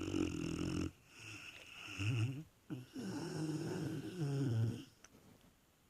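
A dog snoring in heavy sleep: three long rasping snore breaths, each about one to two seconds long.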